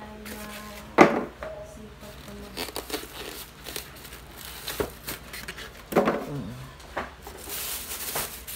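Clear plastic wrap crinkling and rustling as it is pulled and handled around a new induction cooker, with two sharper, louder crackles, one about a second in and one about six seconds in.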